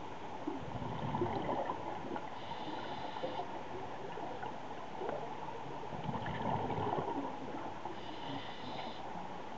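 Scuba regulator breathing underwater: exhaled bubbles gurgle out, then a short hissing inhale through the regulator. The cycle happens twice, about five seconds apart.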